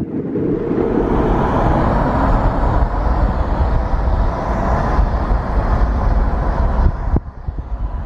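Car driving at speed, heard from inside the cabin: steady road and wind noise with a deep rumble, which drops off suddenly about seven seconds in.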